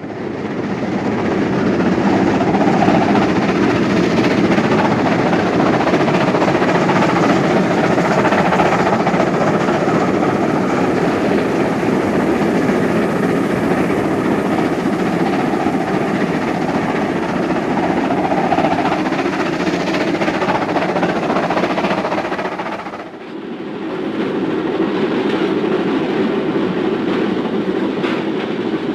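Archive recording of a BR Britannia Class two-cylinder steam locomotive working hard under steam, a dense, continuous sound of exhaust and running. It dips briefly about three-quarters of the way through and then carries on with less hiss.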